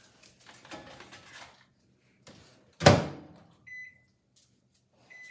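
Microwave oven door shut with one loud clunk about three seconds in, followed by two short single keypad beeps. Soft handling noises come first.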